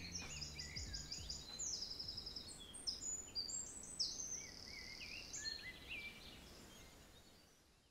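Songbirds singing outdoors: rapid high trills and varied chirping phrases from more than one bird, fading out near the end.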